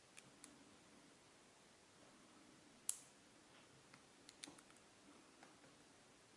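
Faint, scattered clicks of a hook pick and tension wrench working the pin tumblers of a solid-brass lock cylinder during picking. There is one sharper click about three seconds in and a small cluster of clicks about a second and a half later.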